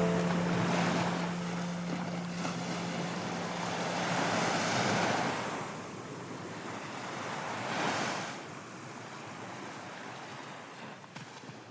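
Sea waves surging in three swells a few seconds apart, with wind buffeting the microphone, fading away near the end.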